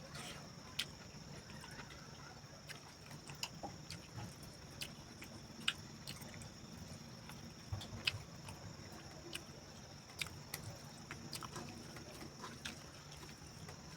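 A person eating: irregular small clicks and smacks of chewing and mouth sounds, over a steady high insect chirr of crickets.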